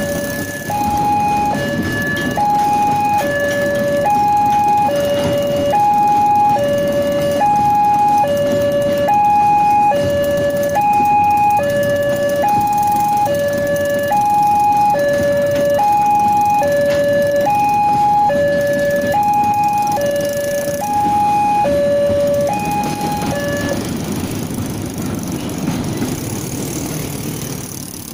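Railway level-crossing warning alarm sounding an electronic two-tone signal, a high and a low tone alternating evenly, over the rumble of a long train of oil tank wagons rolling past. The alarm stops about 24 seconds in, leaving the rolling rumble fading.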